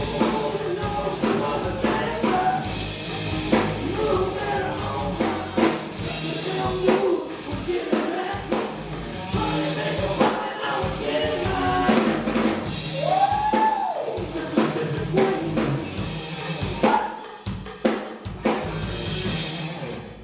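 Live rock band playing: electric guitars over a full drum kit, with regular kick and snare hits and a guitar line bending notes up and down.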